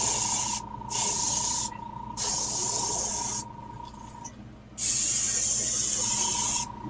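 Airbrush spraying paint onto a crankbait lure in four hissing bursts of one to two seconds each, with short pauses between.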